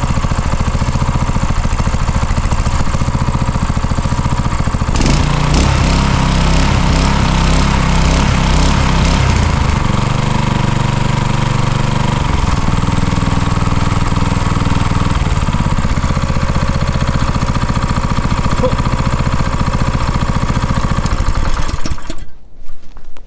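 Eberth 6.5 hp single-cylinder four-stroke petrol engine, a Honda GX200 clone, running freshly started. Its speed changes about five seconds in and again about ten seconds in, and it cuts out shortly before the end.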